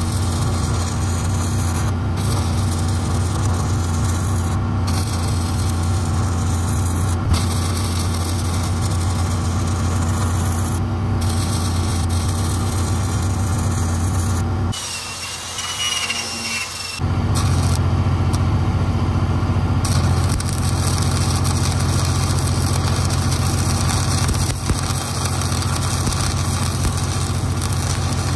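Stick welding arc crackling steadily along a steel seam, over the steady hum of an engine-driven welding machine; the sound briefly drops away about halfway through.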